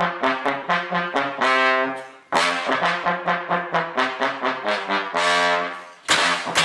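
Brass-sounding music: quick repeated short notes, about four a second, twice broken by a longer held note that fades away before the fast notes start again.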